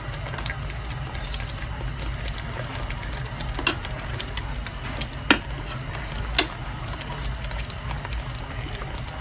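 A pot of coconut-milk laksa gravy simmering, with faint scattered ticks and pops. A wooden spatula knocks sharply against the aluminium pot three times in the middle, over a steady low hum.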